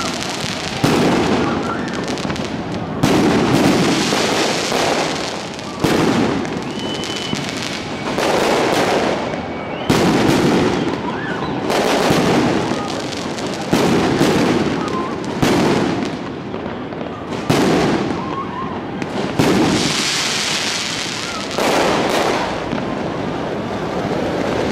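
Fireworks going off in a steady barrage: about ten sharp bangs, one every two seconds or so, each trailing off in a fading crackle.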